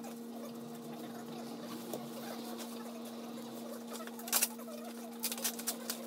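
Light scratching and sharp clicks of hands handling parts on an exposed scooter engine, with a cluster of clicks about four seconds in and several more near the end, over a steady low hum.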